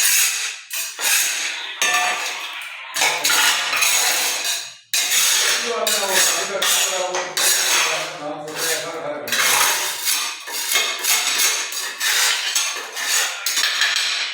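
A metal hand tool scraping and clinking irregularly against tile and cement while a floor drain is being set.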